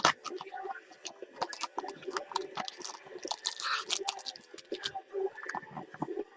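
Hands opening and handling a box of trading cards: a string of sharp clicks and taps on cardboard and packaging, with a short rustle about three and a half seconds in.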